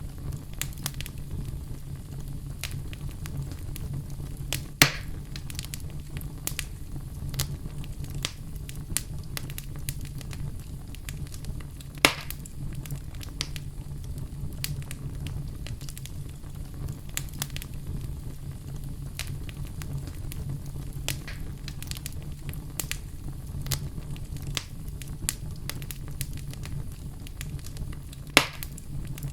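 Campfire burning with a steady low rumble of flames and frequent small crackles. Three louder sharp pops stand out: about five seconds in, about twelve seconds in, and near the end.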